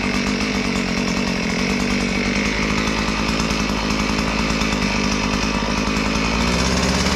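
Earthquake gas post hole auger's two-stroke engine running steadily. About six and a half seconds in, its pitch and level rise a little as the bit starts boring into hard-packed ground.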